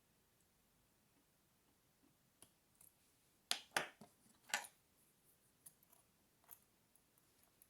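Small sharp clicks from picking an APECS 3-star euro cylinder lock with picking tools: three louder clicks between about three and a half and four and a half seconds in, with fainter ticks scattered around them.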